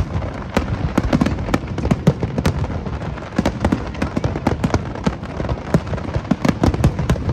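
Fireworks display: a dense, irregular run of sharp bangs and crackles, several a second, over a continuous low rumble of booms.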